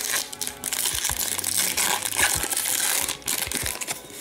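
Hockey card pack wrapper being torn open and crinkled by hand, a dense crackling that eases off about three seconds in, with a little more crinkling near the end.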